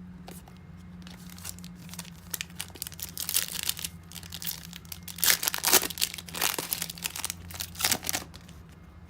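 Crinkling and tearing of a foil trading-card pack wrapper being ripped open. A dense run of crackles builds from about two seconds in, is loudest in the middle and dies away near the end.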